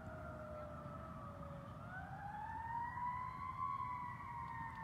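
Faint siren wailing, its pitch sliding down, then rising about two seconds in and slowly falling again, over a low outdoor rumble.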